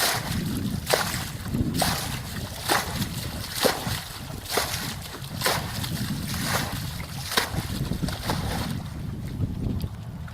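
Water splashing in a steady rhythm, about once a second, over a continuous low rumble; the splashes stop near the end.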